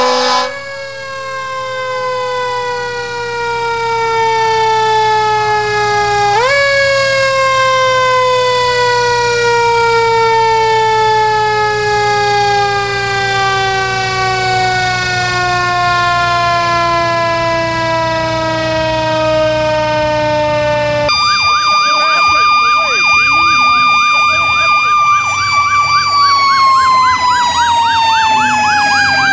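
Fire truck mechanical sirens winding down: one long falling wail, given a brief rise about six seconds in, then coasting slowly lower for about fifteen seconds. After a sudden change, a siren held at a steady pitch with a second, fast-warbling siren under it, then falling away near the end.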